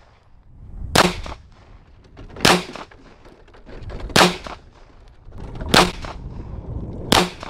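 Kel-Tec PMR-30 pistol firing .22 Magnum (.22 WMR) rounds: five single shots, about one every one and a half seconds, each a sharp crack with a short echo. Wind rumbles on the microphone between shots.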